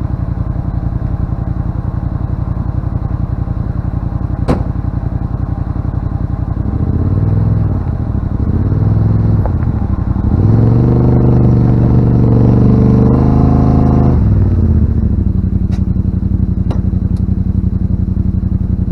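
Yamaha RMAX side-by-side's parallel-twin engine idling, revved up briefly twice, then held at higher revs for about four seconds before settling back to idle. A single sharp click about four and a half seconds in.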